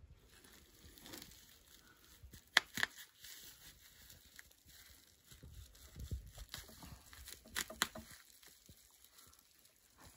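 Woven plastic sack rustling and crinkling as it is tucked and pressed by hand into a wooden cassava press box, with two pairs of sharp clicks a few seconds apart.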